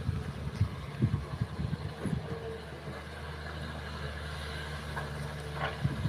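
Kobelco hydraulic excavator's diesel engine running steadily as the machine digs and swings, with several short knocks heard over it.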